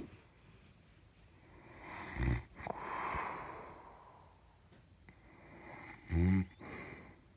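Loud snoring: two short, low, rattling snores about four seconds apart, the second the louder, with a breathy hiss of breath after the first.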